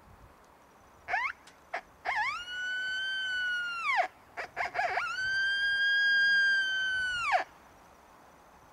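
Coyote howler call, a Woodwise mouth-blown howler, imitating coyote howls: a few short rising yips, then a long howl that slides up, holds steady and drops off, then more short yips and a second long howl that rises, holds and falls off near the end.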